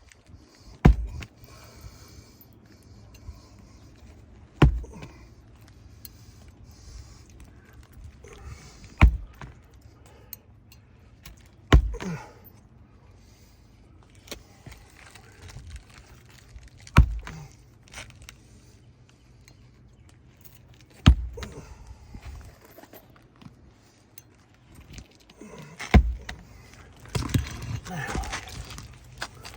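Nails being driven through lifted asphalt shingles into the nailing strip: seven sharp single strikes a few seconds apart, with shingles rustling and scraping near the end.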